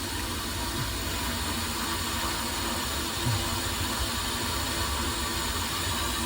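Water running steadily from the hose into a bucket as it fills with water and descaling flush chemical for a tankless water heater flush, with a low rumble underneath.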